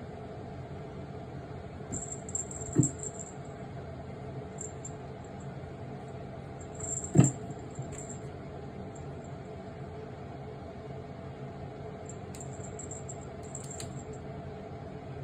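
A kitten pawing and pouncing at a refrigerator door: two dull thumps against the door, with brief spells of light high-pitched rattling and scrabbling, over a steady appliance hum.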